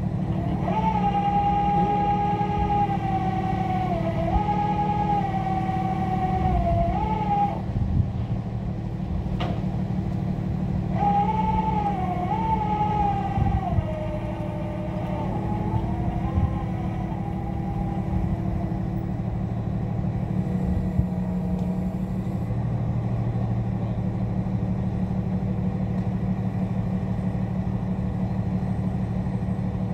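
Tow truck's engine running steadily, with a high whine that holds its pitch and dips now and then during two stretches of several seconds each, about a second in and again around eleven seconds in. One sharp click comes between them.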